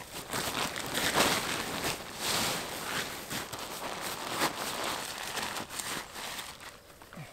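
Crinkly Dyneema fabric of a Zpacks Duplex tent rustling and crumpling in irregular handfuls as the tent is gathered up, rolled and stuffed into its stuff sack.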